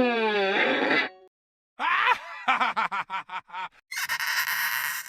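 A string of separate short sound effects. A pitched tone glides up and back down and ends about a second in. After a short gap comes a quick run of short pitched pulses, about six a second. Near the end, loud hiss lasts about a second and a half.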